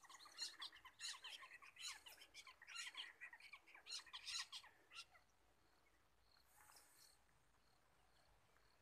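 Several birds chirping and calling: a busy run of short, overlapping, mostly falling high chirps for about five seconds, then fewer calls with a faint high note repeating.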